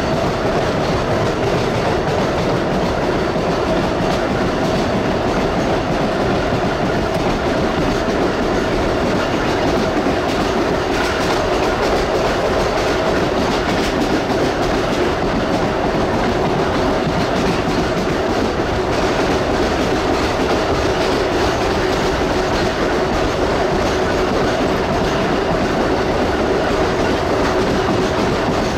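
Ride noise inside a Chicago Rapid Transit 4000-series 'L' car running at a steady speed: a steady whine from the traction motors and gears under the floor, with the wheels clattering on the rails.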